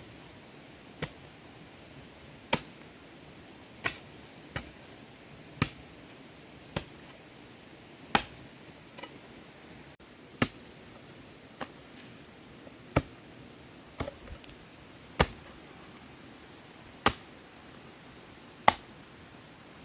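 Sharp knocks of a hand tool striking, one every second or so at an uneven pace, over a faint steady hiss.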